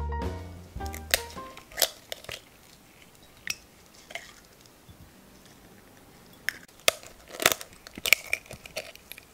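The end of a jazzy music intro dies away in the first second or so. Then a series of sharp clicks and cracks comes as a brown eggshell is cracked and pried open with gloved fingers over a glass bowl, the loudest a little before the end.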